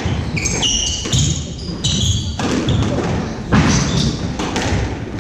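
Squash rally on a wooden court: short high squeaks of court shoes on the hardwood floor, heaviest in the first two and a half seconds, over a run of sharp cracks from the ball striking racket and walls and the thud of footfalls.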